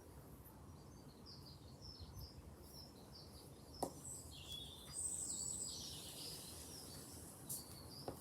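Small birds chirping and singing, with a louder burst of fast, high twittering about five seconds in. Two sharp clicks sound, one about four seconds in and one near the end.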